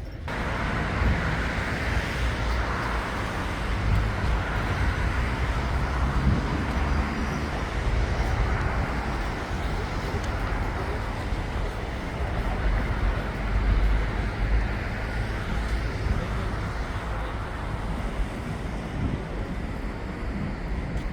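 Steady city road traffic noise: engines and tyres on a busy street, with a low rumble.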